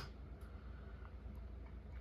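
Faint, scattered small clicks of a lock pick working the pins inside a challenge lock's keyway, over a steady low hum.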